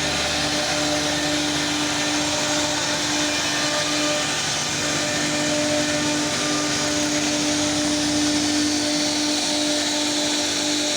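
CNC router running steadily as it cuts wood or board: a constant spindle hum over a continuous hiss of cutting, with no pauses.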